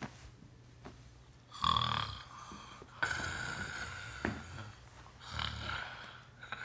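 A man snoring, with several loud rasping snores a second or two apart over a faint steady hum. There is a single sharp click in the middle.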